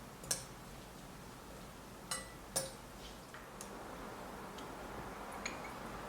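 A few sharp clinks and taps of kitchen utensils against dishes, the loudest just after the start and two close together a little after two seconds in, with fainter taps later.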